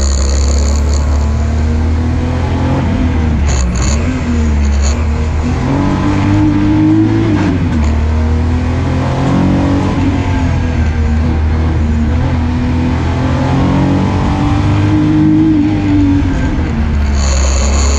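VW Corrado G60's supercharged four-cylinder engine under hard running up a hillclimb, heard from inside the car. The engine note climbs and drops again and again as the driver accelerates and lifts between corners.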